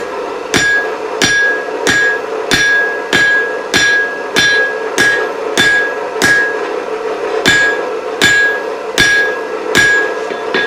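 Blacksmith's hammer striking hot steel bar stock on an anvil, forging the working end of a chisel: steady, heavy blows about one and a half a second, each with a short ring, with a pause of about a second past the middle. A steady hum runs underneath.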